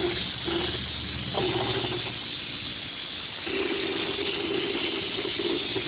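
Air-powered hopper texture gun spraying a hard-coat finish, its air hissing in short spurts as the trigger is worked, then in one long spray from about three and a half seconds in, over a steady motor hum.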